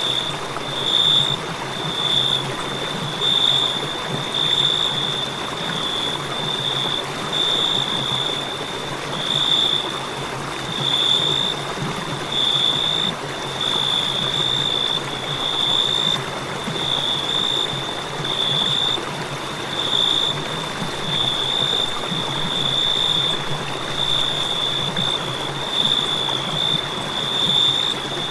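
Crickets chirping: a high, thin trill in short bursts roughly once a second, over a steady hiss.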